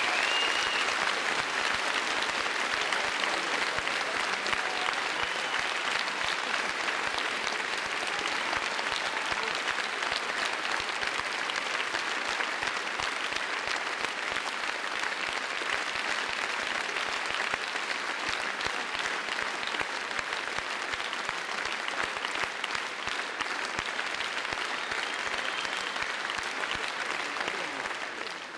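Concert audience applauding, a steady dense clapping that drops away at the very end.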